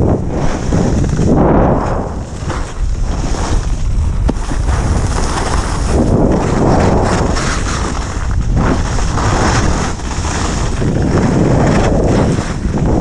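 Wind rushing and buffeting over an action camera's microphone as a skier descends a groomed slope, with the scrape of skis on snow swelling every two to three seconds.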